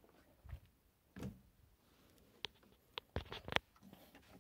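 Faint scattered knocks and sharp little clicks as a hand grips and shifts dry, weathered dead wood among rocks: two soft thuds first, then a quick run of about five clicks near the end.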